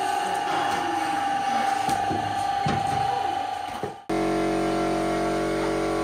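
Three-phase electric motors of a handmade veneer peeling machine running, with a steady whine and scattered knocks and rustling of the veneer sheet. About four seconds in, the sound cuts off abruptly and gives way to a steadier motor hum made of several steady tones.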